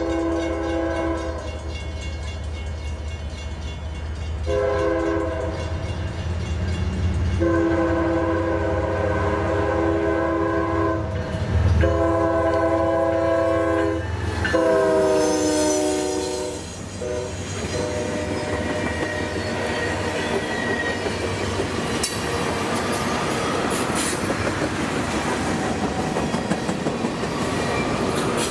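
CN GE ES44DC diesel locomotives sounding their horn in five blasts as they approach, the last one dropping in pitch as the lead unit passes, over the low rumble of the engines. Then the freight cars roll by with steady wheel noise and clickety-clack on the rails.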